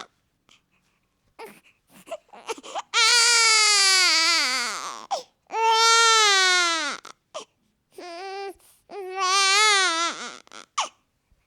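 Newborn baby crying: four cries, the first two long and loud, each dropping in pitch as it ends, with short breaths in the pauses between them.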